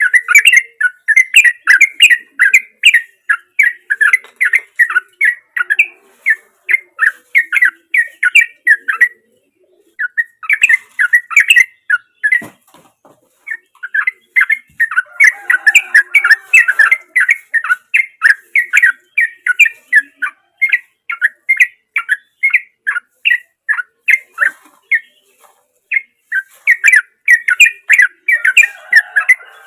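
Yellow-vented bulbul (trucukan) singing: long runs of rapid, evenly repeated chirping notes, about four a second, broken off by a few short pauses.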